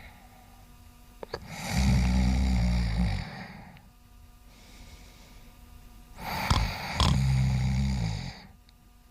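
Domestic cat snoring in its sleep: two loud snoring breaths about five seconds apart, each with a low buzz, and a faint breath between them.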